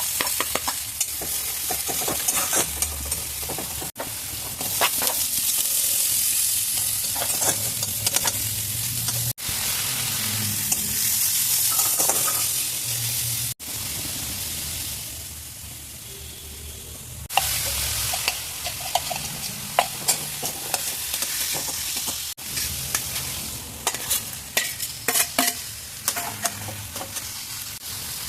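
Food frying in hot oil in a pan, a steady sizzle with a utensil clicking and scraping against the pan as it is stirred or turned. Several short clips are joined, so the sizzle cuts off and restarts a few times, dropping quieter for a few seconds in the middle.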